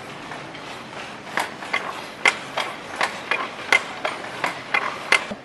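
Wooden handloom being worked: a run of sharp wooden knocks, about two to three a second, some louder than others, starting about a second in.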